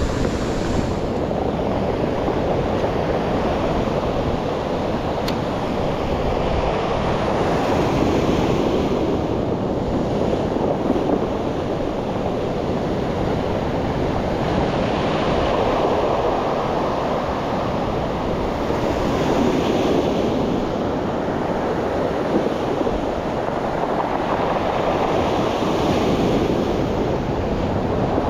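Surf breaking and washing up a pebble beach, swelling and easing every few seconds.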